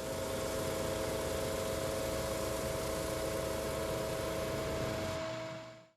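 Homemade drum sander built from an old wood lathe, running steadily with an even whir and a steady hum, fading out near the end.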